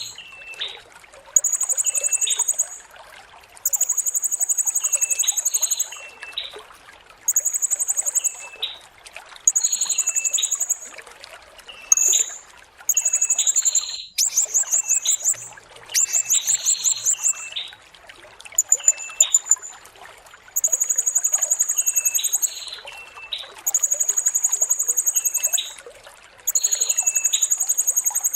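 Blue-crowned hanging parrot (serindit) singing: very high-pitched trilled notes, each lasting one to two seconds, repeated every couple of seconds, with shorter, lower chirps in between. A steady trickle of water runs underneath.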